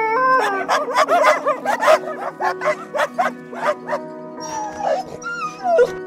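Puppies yapping in a quick run of short barks, with a wavering howl at the start and high gliding whines near the end, over background music.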